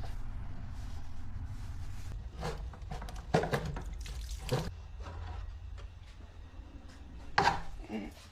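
Several knocks and clatters as pool filter parts are handled during installation of a new filter bottom half, over a steady low hum.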